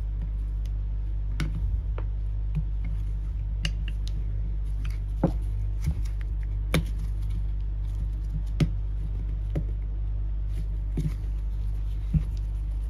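Scattered light clicks and scrapes of a metal pick against the Sherwood M71 seawater pump's housing as the old rubber impeller is prised out, about ten small knocks spread through, over a steady low hum.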